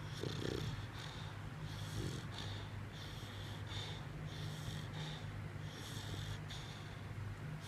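Dog snoring in its sleep: a regular hissing, whistling noise on each breath, a little more than one a second.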